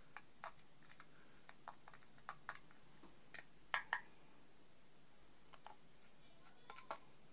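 Faint, scattered small clicks and taps of a metal spatula tool and the plastic earbuds-case lid being handled as fine dust is packed into the lid's broken hinge. The loudest two clicks come close together a little before four seconds in.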